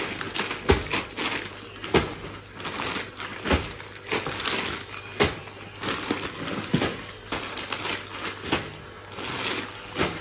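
Plastic bags of frozen dumplings crinkling and knocking as they are handled, slid across a glass freezer lid and dropped into a cardboard box. It comes as irregular knocks and crackles, one or two a second.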